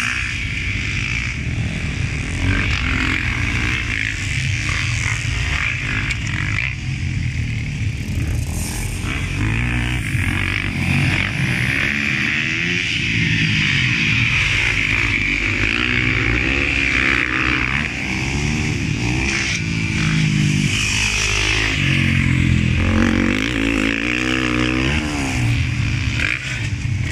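Motocross dirt bikes racing on the track, their engines revving up and falling back again and again through the corners and jumps. Two bikes pass close about halfway through.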